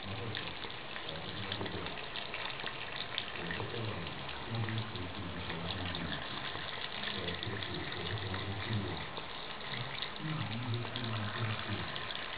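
Tap water running steadily from a faucet into a sink while a cat drinks from the stream.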